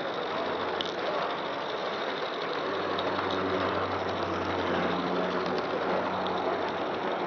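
G-scale model train rolling along garden-scale track, heard while riding on one of its cars: a steady rattling rumble of wheels on rail, with a low hum joining about two and a half seconds in.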